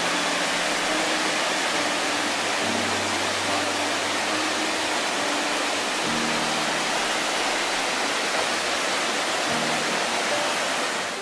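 Mountain stream rushing and cascading over granite boulders: a loud, steady hiss of falling water, with soft background music underneath.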